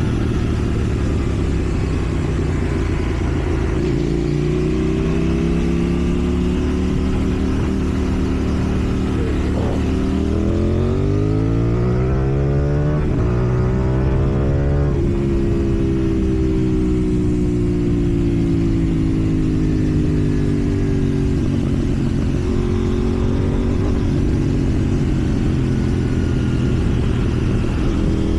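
KTM Duke 790 parallel-twin engine through a slip-on exhaust, heard while riding: the revs climb steadily from about ten seconds in to about fifteen, then fall away gradually, over a steady rush of wind noise.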